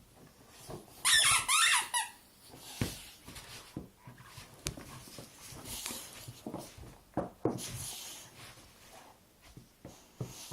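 A dog's squeaky rubber duck toy squeaking several times in quick succession about a second in, followed by softer knocks and shuffling as it is played with.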